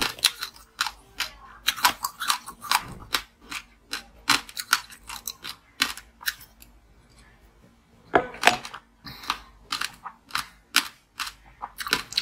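Close-up crunching and cracking of frozen juice ice being bitten and chewed: rapid, irregular sharp crunches, a pause of about two seconds around the middle, then the crunching starts again.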